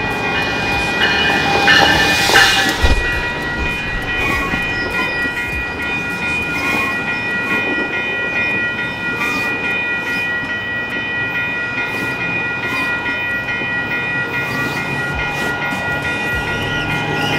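Commuter train passing close by at a grade crossing, its bi-level coaches rumbling along with wheels clacking over the rails. It is loudest a couple of seconds in, over a steady high whine.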